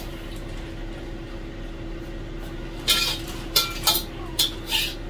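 A handful of short, sharp clinks of utensils and vegetables against a ceramic serving plate, clustered from about three seconds in, over a steady low hum.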